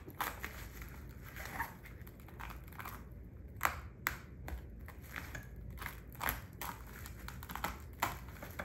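Plastic stretch wrap crinkling and crackling as it is sliced with a box cutter and pulled away by hand, in irregular sharp crackles, the loudest a little under halfway through.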